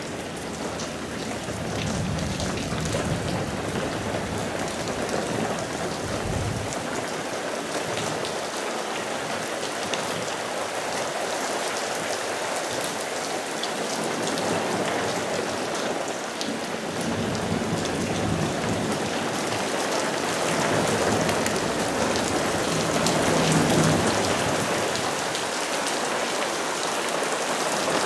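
Steady rain falling on a swimming pool and wet concrete deck: a dense hiss of drops splashing on water and pavement. Low rumbles swell about two seconds in and again near the end.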